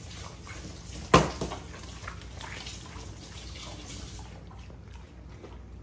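Two Belgian Malinois licking and lapping food scraps off a folding tabletop, a run of wet smacking and licking sounds, with one loud sharp knock about a second in.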